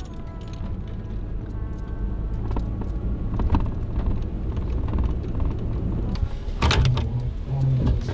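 Ford pickup truck's engine and road rumble heard from inside the cab while driving, with a few scattered knocks. About seven seconds in there is a short cluster of knocks and a stronger low hum.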